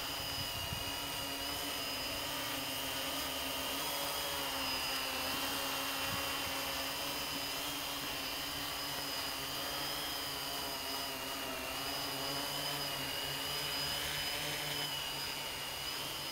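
Quadcopter's electric motors and propellers whining steadily, the pitch wavering slightly up and down.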